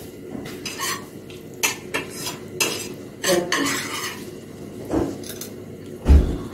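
Kitchen handling sounds while a samosa is filled by hand: the thin pastry sheet rustling, scattered light clicks and clinks against ceramic plates, and a dull thump near the end.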